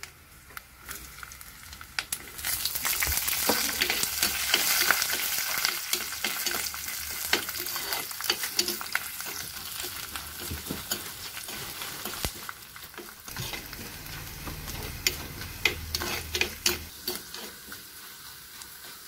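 Coconut slices, ginger and garlic frying in hot coconut oil in a clay pot. The oil sizzles while a metal ladle stirs, with frequent clicks of the ladle against the pot. The sizzle swells about two seconds in and slowly eases toward the end.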